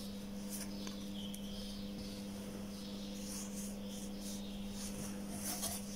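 Faint scratching and rubbing of fingers and plastic as a smartphone's back cover is worked loose and lifted off, over a steady low electrical hum.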